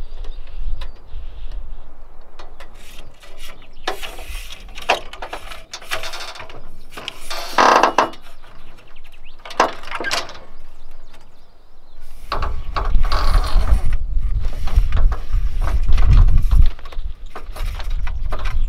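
Metal awning mechanism on a camper trailer clicking, ratcheting and scraping as the roll-out awning and its telescopic aluminium support legs are extended and set. A heavy low rumble joins in about two-thirds of the way through.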